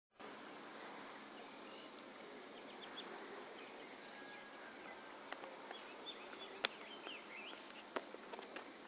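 Open-air background noise with birds chirping now and then, and a few sharp clicks, the loudest just past the middle.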